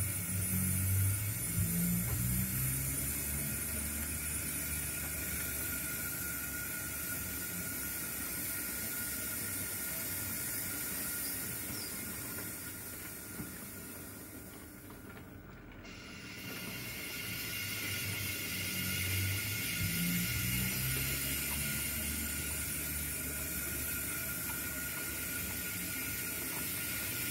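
A 0 gauge model goods train of empty wagons rolling over the track and pointwork, a low rumble of wheels on rail. It is louder at first, fades to its quietest about halfway through, then builds again as the rear wagons and brake van come close.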